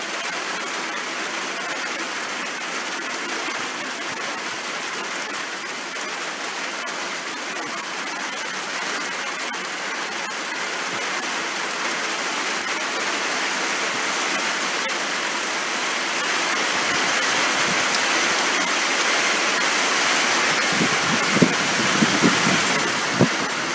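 Steady rain falling over a garden, an even hiss that grows gradually louder through the second half. A few short louder sounds near the end.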